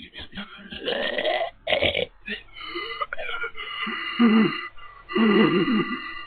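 A person voicing a dying cat's choking, a string of irregular throaty croaks and gasps, loudest about four and five seconds in.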